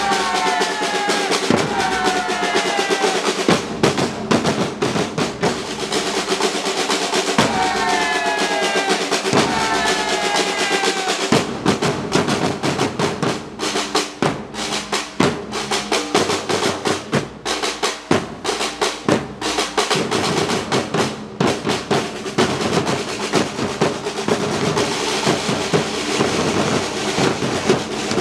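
Batucada samba percussion band drumming: snare drums and bass drums play a fast, dense rhythm. Twice, near the start and again about eight seconds in, a pitched sound slides downward in short repeated falls over the drums.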